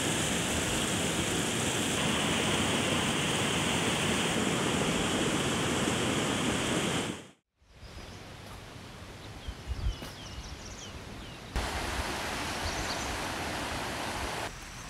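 A steady rushing noise for about seven seconds, then a sudden cut to quieter outdoor ambience in which a few birds chirp briefly.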